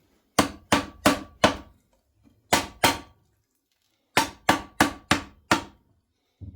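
Hammer strikes on metal, eleven sharp blows in three groups (four, then two, then five), about three a second: tapping to loosen the main bearing girdle of a 2.2 L Ecotec engine during teardown.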